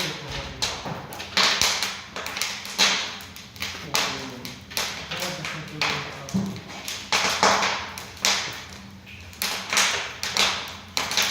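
An irregular series of taps or knocks, one or two a second, each with a short hissing tail.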